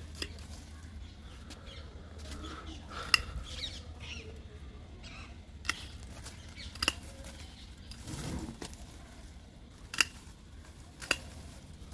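Hand pruning shears snipping through rose stems: about half a dozen sharp, separate snips spaced a second or more apart.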